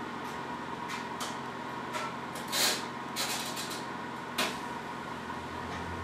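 Steady low electrical hum with a faint constant high tone, broken by scattered small clicks and short rustles; the loudest rustle comes about two and a half seconds in and a sharp click near four and a half seconds.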